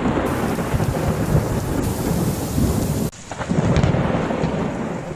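Strong storm wind gusting and buffeting the microphone in a blizzard, a loud, deep, ragged rumble. It breaks off abruptly about three seconds in and starts again a moment later.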